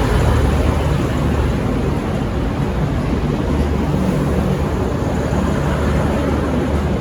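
Two coupled V/Line VLocity diesel railcar sets running as they pull out: a steady low diesel drone under a wash of wheel and rail noise.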